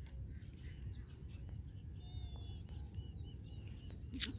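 Outdoor ambience: a steady low rumble of wind on the microphone, a steady high insect drone, and a bird giving a few short chirps about halfway through. A brief hiss comes near the end.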